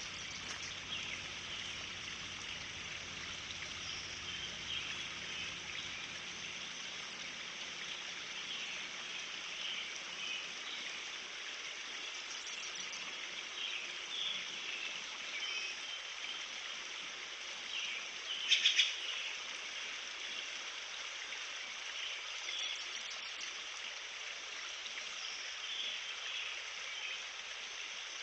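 Forest ambience: a steady rushing hiss with scattered small bird chirps throughout, and one brief louder burst of chirps about 18 seconds in.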